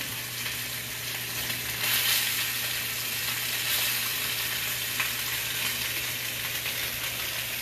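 Scallops searing in hot oil in a cast iron skillet, a steady sizzle with small swells.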